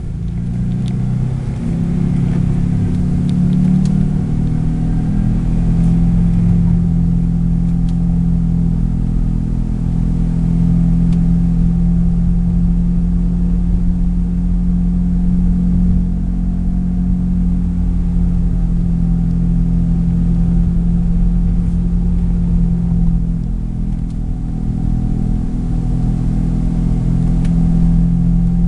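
Steady low drone from an Acura TSX under way, over road rumble, which the owner suspects is a bad wheel bearing.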